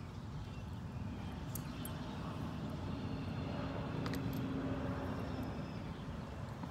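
Steady low rumbling background noise, with a faint hum through the middle. A few light metallic clinks come from a bridle's bit and curb chain as it is taken off a horse's head.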